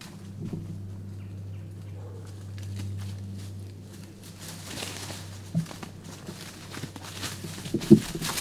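Footfalls and rustling in dry leaf litter and brush, getting busier about five seconds in, with two sharp knocks, the louder one near the end.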